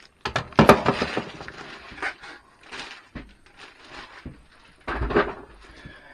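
Irregular knocks, clicks and rustling of a pneumatic brad nailer and its packaging being handled, with two louder clunks, about a second in and near five seconds.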